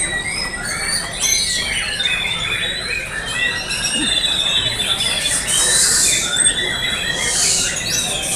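Several caged white-rumped shamas (murai batu) singing at once: a dense overlap of loud whistles, trills and rapid chattering phrases.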